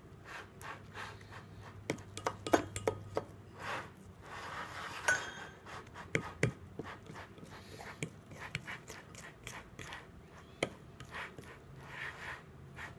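A utensil knocking and scraping against a mixing bowl at an uneven pace, stirring stiff flour-and-salt dough as it clumps into a ball.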